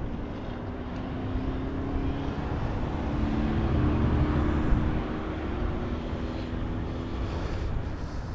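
A steady motor drone with a few held tones that shift slightly in pitch midway, over wind noise on the microphone.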